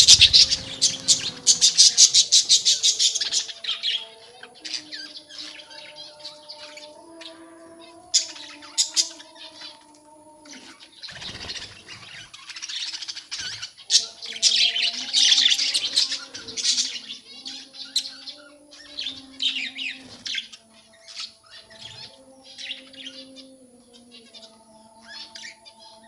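A colony of budgerigars chattering and chirping, busiest in the first few seconds and again about halfway through.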